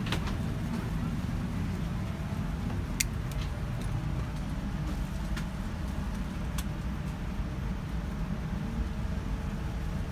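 Steady low hum of a Boeing 787-9's cabin air system during boarding on the ground, with a couple of sharp clicks about three and six and a half seconds in.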